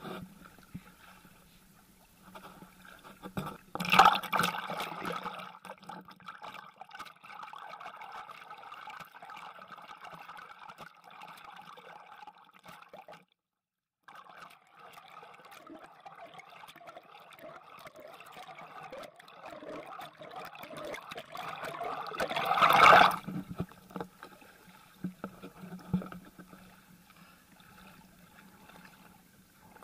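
Kayak paddles dipping and water splashing and trickling around an inflatable kayak, with two louder splashes about four seconds in and again around twenty-three seconds. The sound drops out for about a second near the middle.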